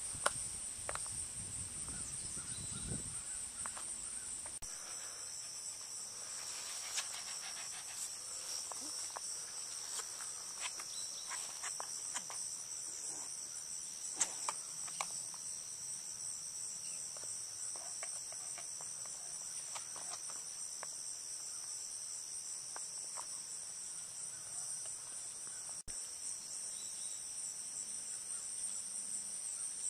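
Insects chirring steadily in a high, continuous trill, with a low rumble for the first few seconds and a few faint clicks.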